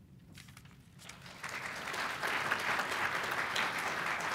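Audience applauding, starting about a second in and building to a steady level.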